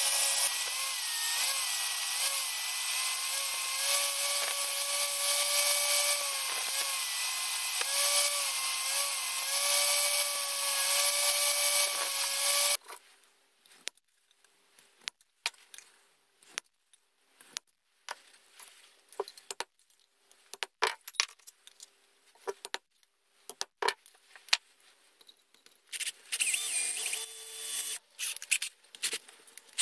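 Bench-mounted angle grinder grinding a small steel plate held against its disc, with a steady motor whine whose pitch dips each time the steel is pressed in, and a hiss of grinding; it stops abruptly about 13 seconds in. Then come scattered light clicks and taps of steel parts handled on a bench, and near the end a power tool starts up again.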